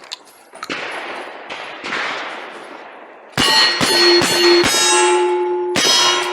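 Steel shooting targets clanging and ringing from a quick run of hits, about three or four a second, starting about halfway through.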